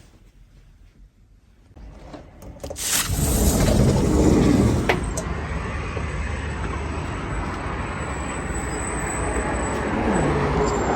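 Steady road and engine noise of a moving vehicle, a low rumble that comes in suddenly about three seconds in after a quiet start.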